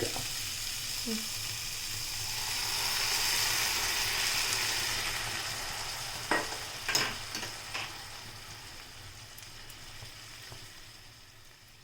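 Chicken and onion masala sizzling in a hot pan as a little water is poured in: the hiss swells, then slowly dies down. A spoon knocks against the pan a few times near the middle.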